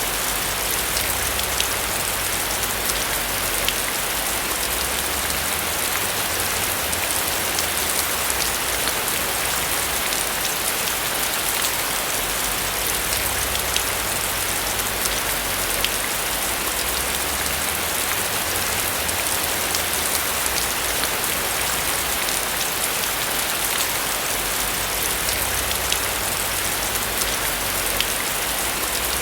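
Steady rain falling on a roof, a constant hiss dotted with the small ticks of individual drops, over a low rumble that rises and falls every few seconds.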